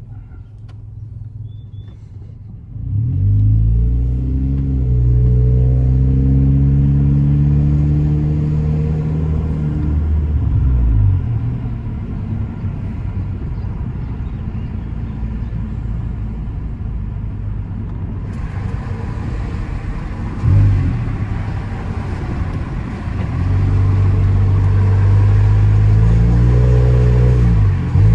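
Hyundai i30 running with its exhaust muffler removed, accelerating hard: about three seconds in the engine note jumps up and rises steadily for several seconds, drops back near the middle to a steady cruise, then rises again in a second pull near the end.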